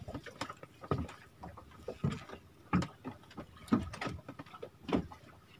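Small waves slapping and knocking against the hull of a small fishing boat: irregular splashy knocks about once a second over a faint wash of sea noise.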